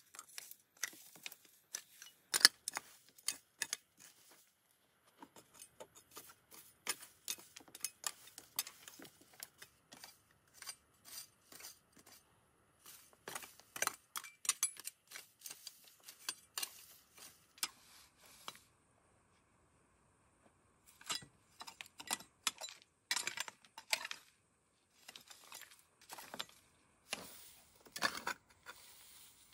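Loose stones and gravel clicking, clinking and scraping as rocky, dusty ground is cleared by hand, in irregular clusters of sharp knocks with a short quiet pause about two-thirds of the way in.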